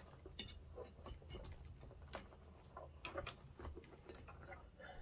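Faint, irregular clicks, taps and rubbing of hands working a rubber inner tube and tyre onto an electric unicycle wheel.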